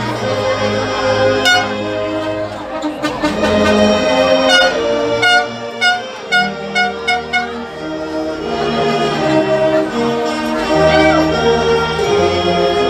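Brass band music: trumpets and trombones playing a slow melody, with a stretch of short, detached notes near the middle.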